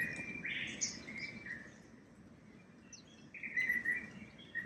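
Forest birds singing: clear whistled phrases in two spells, one at the start and another about three seconds in, with short high chirps between, over a faint, steady low background.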